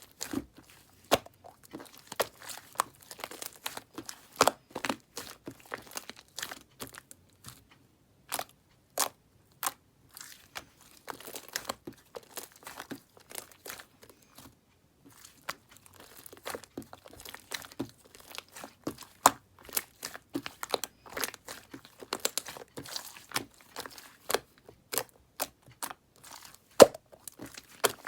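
Close-up crunching and crackling of a brittle green bubble layer, a fast irregular run of sharp crackles with a brief pause about halfway.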